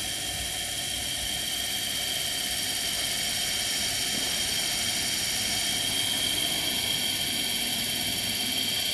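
Indesit washing machine series (universal) motor running unloaded at very high speed: a steady high-pitched whine with several tones held above a hiss, growing slightly louder over the first few seconds.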